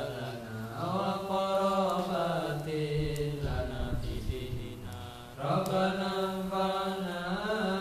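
A man's voice, amplified through a microphone, chanting an Arabic prayer (du'a) in long, held, wavering notes. It breaks off for about two seconds about three seconds in, then resumes.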